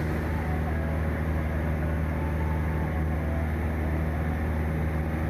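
Steady drone of a CubCrafters Carbon Cub EX's four-cylinder piston engine and propeller in cruise, heard inside the cockpit. It holds one even pitch throughout.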